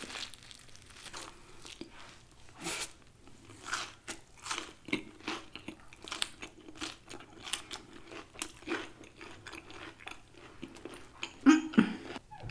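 Close-miked biting and chewing of crispy fried chicken: irregular crunches of the breading, with a louder sound near the end.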